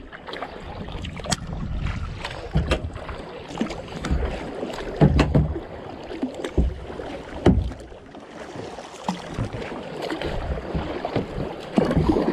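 Kayak paddling: a double-bladed paddle dipping and pulling through the water stroke after stroke, with splashes, drips and sharp little clicks. There are heavier low thuds about five and seven seconds in.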